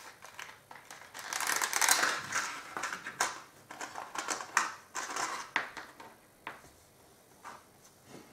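Thin clear plastic blister pack being handled and pulled open: a dense crackling for about two seconds. After it comes a run of separate sharp clicks and taps, about one a second and growing fainter.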